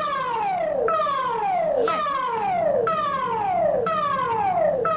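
The Singapore Public Warning System's Important Message Signal, sounded as an exercise and not a real emergency: a siren tone that drops in pitch and restarts high about once a second, over and over.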